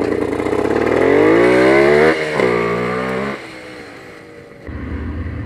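Aprilia Pegaso 650 Cube's single-cylinder engine accelerating on a dirt trail. The revs climb for about two seconds, drop suddenly at a gear change and climb again, then ease off. A low engine rumble follows near the end.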